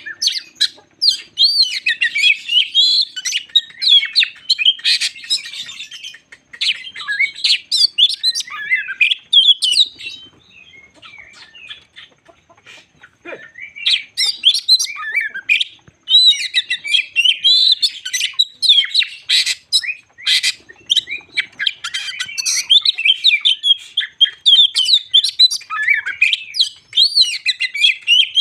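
Oriental magpie-robin (kacer jambul) singing a fast, varied song of whistles, trills and chattering notes. It breaks off for a few seconds about ten seconds in, then starts up again.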